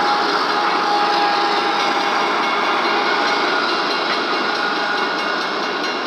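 Loaded covered hopper cars of a sand train rolling past, a steady rush of wheels on rail. A few thin steady tones sound above it.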